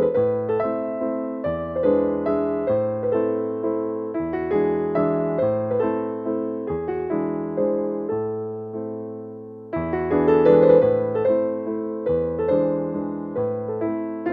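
Background piano music: a gentle keyboard melody of struck notes that fade, over slower bass notes, with a brief pause about two-thirds of the way through.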